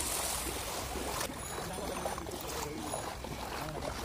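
Light rain falling on floodwater, a steady hiss with a brighter burst in about the first second.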